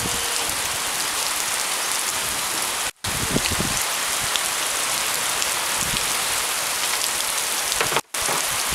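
Steady rain falling, a dense, even hiss, broken by two brief dropouts about three seconds in and near the end.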